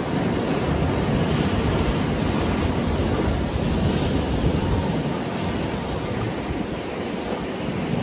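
Choppy sea surf breaking and churning against rocks along the shore: a steady, dense rushing of waves that swells slightly and then eases a little.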